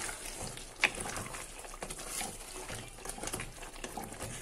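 Wooden spoon stirring thick chicken korma gravy in a pot, with wet squelching, soft scrapes and light knocks against the pot, one sharper knock about a second in.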